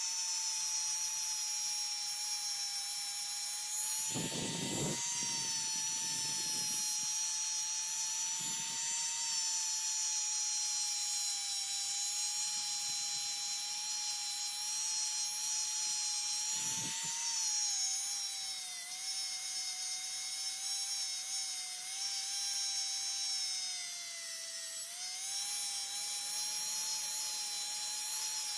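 Handheld rotary tool with a small wire wheel running at a steady high whine while polishing the bare metal of a diecast toy car body. Short scratchy bursts come about 4 and 8 seconds in and again about 17 seconds in as the wire wheel bites the casting, and the whine's pitch dips slightly a couple of times later on.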